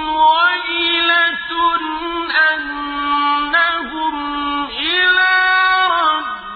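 Quran recitation (tajweed): a single voice chanting Arabic verses in long, drawn-out melodic notes that glide up and down in pitch, with short breaks between phrases.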